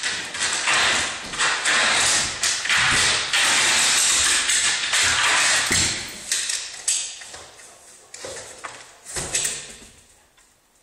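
German Shepherd scratching and pushing at a window, its claws scraping and knocking against the glass and frame in a dense run of scrapes and taps. The noise thins out and fades away near the end.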